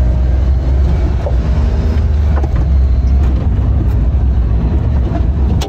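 The 1992 Mitsubishi Mighty Mits kei truck's small three-cylinder engine running as the truck drives, a steady low rumble.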